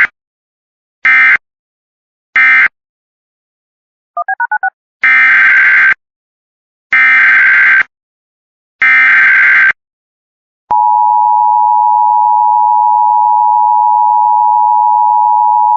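Emergency Alert System data and tones: three short SAME end-of-message bursts, a brief run of quick beeps, then three longer SAME header bursts about two seconds apart opening the next alert. After about ten seconds the steady two-tone EAS attention signal comes in and holds.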